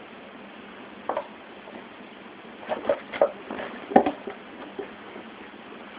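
Scattered light taps and clicks from a kitten playing on a hardwood floor and towels, in a loose cluster of several in a second or so and one sharper knock about four seconds in.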